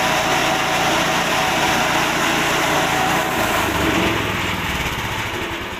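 Forage chopper (chaff cutter) driven by a small 6.5 hp petrol engine, running at full speed as corn stalks are fed into its hopper. The sound begins to die down near the end.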